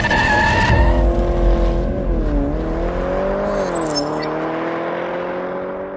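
A car at speed: an engine note that holds, dips and climbs again twice, with a skidding, tyre-squealing sound, fading away at the end.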